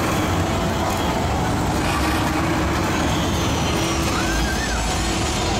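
Car-crushing dinosaur robot's engine and hydraulics running steadily with a heavy rumble as it chews on a car, with a short warbling whistle about four seconds in.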